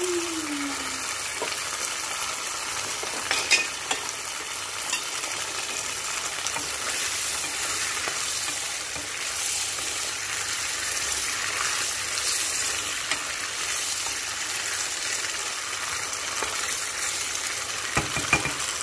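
Tomato sauce with fish balls sizzling steadily in a nonstick frying pan, while a wooden spatula stirs it, with a few light knocks against the pan.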